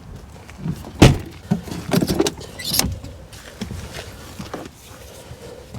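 A sharp thump about a second in, then a run of knocks and rattles, as of gear being handled and moved around inside a vehicle.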